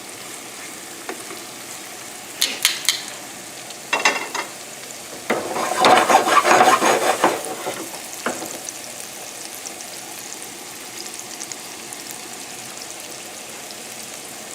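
Shrimp sizzling steadily in a hot frying pan with onion and garlic. A few sharp utensil clicks come in the first four seconds, then about three seconds of clatter and louder sizzling as the shrimp are moved around in the pan.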